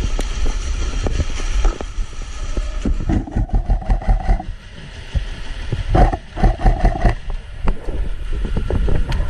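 Rumbling handling and movement noise on a body-worn camera, with scattered knocks and clicks and two brief steady buzzes, about a second each, near the middle and later on.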